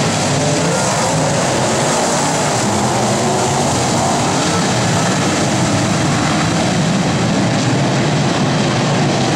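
Several IMCA modified dirt-track race cars' V8 engines running together in a pack, a loud, steady wall of engine noise with overlapping notes wavering up and down.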